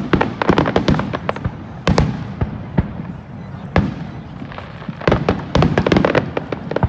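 Aerial fireworks going off in a display: rapid clusters of sharp bangs and crackles, densest in the first second and a half and again over the last two seconds, with a single loud bang near the middle.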